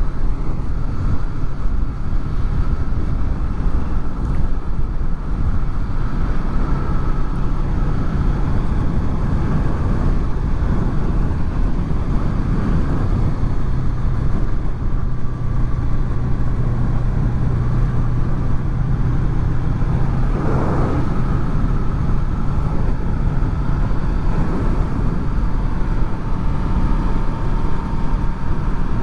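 Honda VFR800's V4 engine running steadily while riding, under a continuous rush of wind and road noise.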